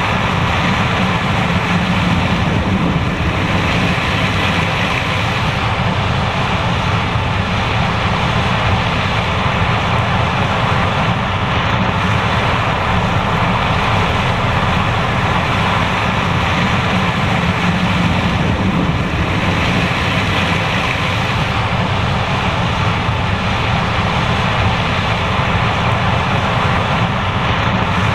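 John Deere S780 combine harvester running steadily while harvesting corn, a constant heavy machine drone with a broad rushing noise over it.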